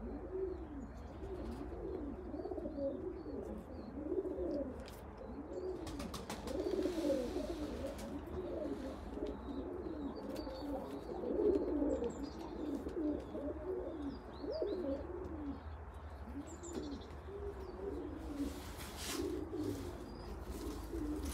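Several domestic pigeons cooing without pause, their rising-and-falling coos overlapping one another, with faint high chirps above them and a few sharp clicks.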